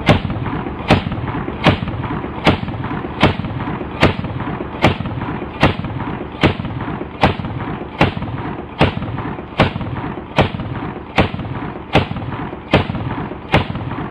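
AA-12 fully automatic 12-gauge shotgun firing: a sustained heavy rumble with a sharp crack about every three-quarters of a second, evenly spaced.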